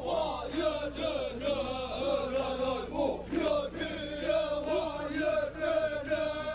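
A group of male voices chanting together, with several voices overlapping in wavering sung notes, over a steady low hum.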